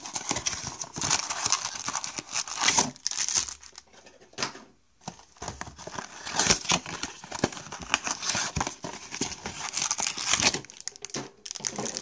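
Cardboard trading-card blaster boxes being torn open and their foil-wrapped card packs pulled out and stacked, crinkling and tearing in irregular bursts, with a short lull about four seconds in.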